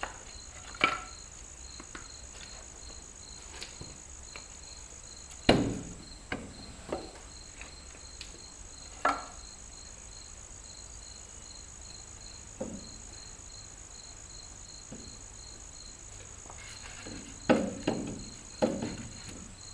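Scattered knocks and taps from hand-mounting a tractor front tire on a manual tire changer, about five of them loud and sharp, with a cluster near the end. Crickets chirp steadily throughout.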